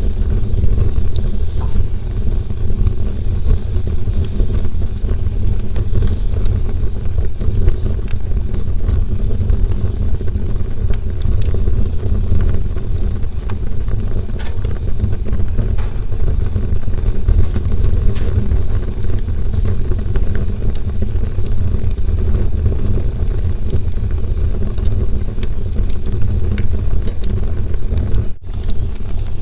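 Campfire burning with a steady deep rumble and scattered small crackles and pops. The sound drops out for an instant near the end.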